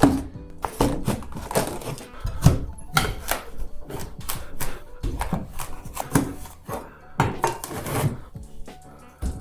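Background music over a run of knocks, scrapes and clatter as old ceiling tiles are pried off with a hand scraper and dropped.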